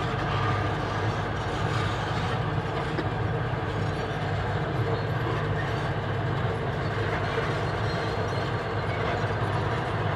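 Steady low mechanical rumble of running machinery, even throughout, with no distinct knocks or hammer blows.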